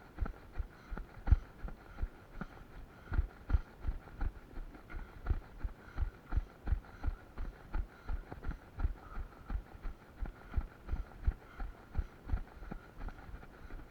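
Footfalls of a person running, heavy low thuds at a steady pace of about three a second.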